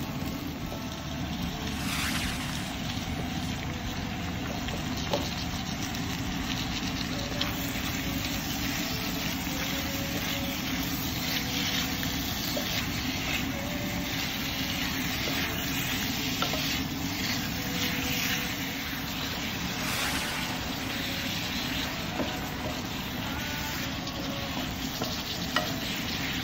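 Onion, garlic and ginger, then pork pieces, sizzling in oil in a wok. A wooden spatula stirs them and now and then scrapes or taps against the pan with faint clicks.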